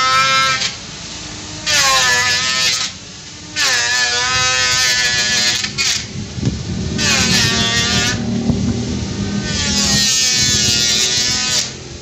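Xenon CDGT360 12-volt cordless grass trimmer with its steel blade, the electric motor whining in repeated bursts of one to two seconds as the trigger is squeezed and let go. The pitch climbs as each burst starts, with quieter gaps between bursts.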